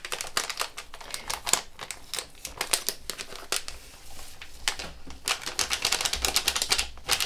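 A utensil clicking against a bowl while stirring kisiel powder into cold milk. The strokes are irregular at first and become fast and steady about five seconds in.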